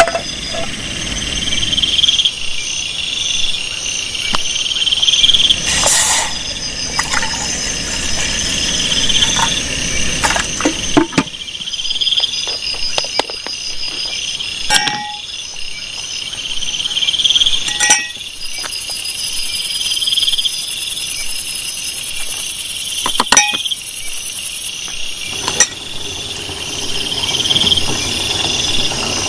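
Forest insects, crickets among them, calling in overlapping trills that swell and fade every second or two, with a high steady hiss joining in the middle. A few sharp clicks or clinks sound now and then.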